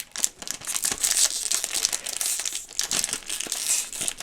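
Snack packet wrapper crinkling as hands work at it, trying to tear it open.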